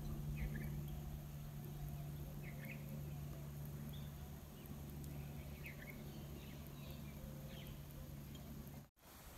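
Outdoor pond-side ambience: a steady low hum with a low rumble beneath it, and short bird chirps every second or two. The sound drops out for a moment near the end.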